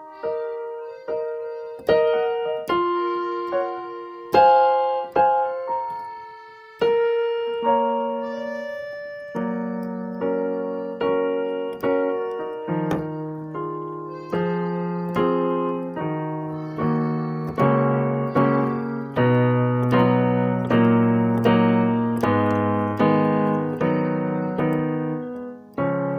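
Solo piano background music, single notes struck one after another at first, with fuller, lower chords joining about a third of the way in.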